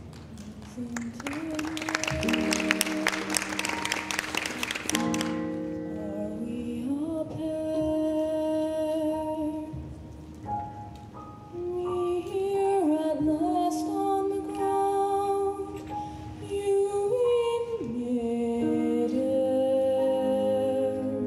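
A burst of audience applause from about a second in to about five seconds, under soft music, then a show choir singing slow, sustained harmonies with instrumental accompaniment, the chords moving in steps.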